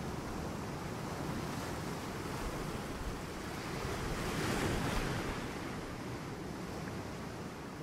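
Ocean waves washing in, a steady surf hiss that swells once about four and a half seconds in and then eases off.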